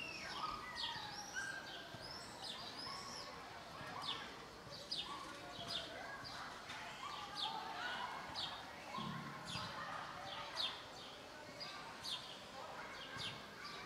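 Small birds chirping: a long string of short, high chirps repeating about every half second, over softer, more varied bird calls.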